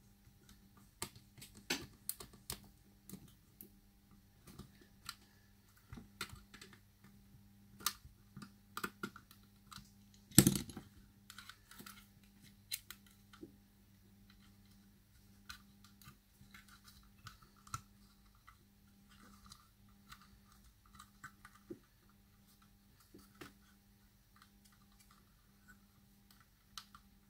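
Scattered small plastic clicks and taps as the white plastic housing of a Sonoff S20 smart plug is handled and fitted back together, with one much louder knock about ten seconds in.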